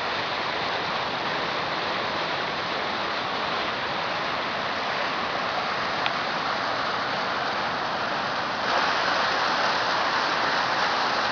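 Steady rushing noise of the kind running water makes, getting louder about nine seconds in, with one faint click about six seconds in.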